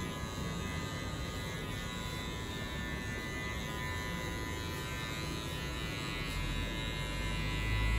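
Electric hair clipper running steadily as it is worked over the back of a closely cut head, blending out the last lines of a high fade. A deeper low hum grows in near the end.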